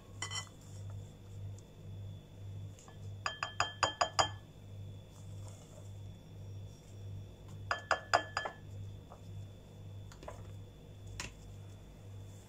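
A spatula knocked quickly against a glass mixing bowl, clinking with a brief glassy ring: two runs of quick taps a few seconds apart, with a few single knocks elsewhere. A low steady hum runs underneath.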